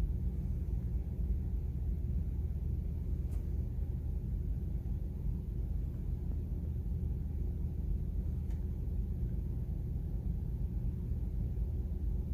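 Steady low rumble of a car being driven, heard inside the cabin: engine and road noise, with a couple of faint clicks.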